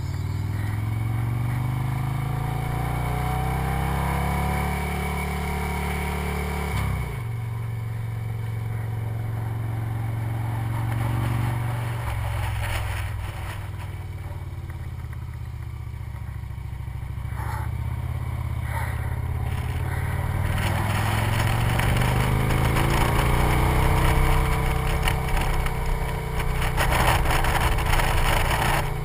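Victory motorcycle V-twin engine under way, its pitch climbing as it accelerates, dropping sharply about seven seconds in, then climbing again in the last third. Wind rushes over the microphone throughout.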